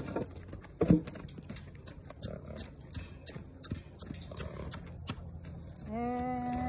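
A young horse cantering loose on dirt, its hooves thudding on the ground, with one loud knock about a second in. Near the end a long call held at one steady pitch begins.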